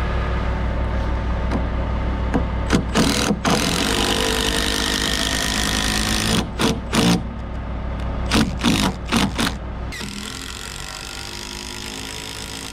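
Steady low hum of the aerial lift's engine running, which drops to a quieter level near the end. Over it, a cordless impact driver fires several short bursts driving screws into the fascia board, in three clusters: about three seconds in, around seven seconds, and just before the engine quiets.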